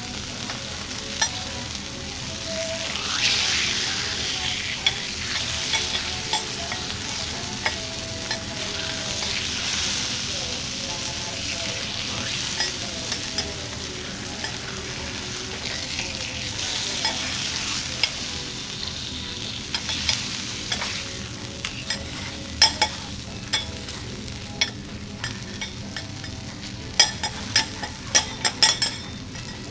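Hanwoo sirloin steak sizzling on a hot flat steel teppanyaki griddle while metal spatulas press, scrape and turn it. In the last third the sharp clinks of the spatulas striking the griddle come thick and fast.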